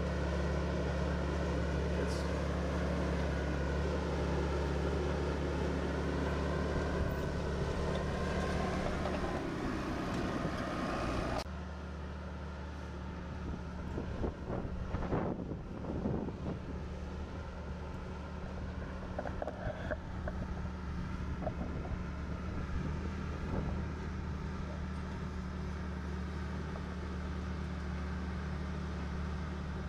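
Bulldozer's diesel engine running steadily while working. It drops abruptly in loudness about a third of the way through, and a few clanks of metal come a little later.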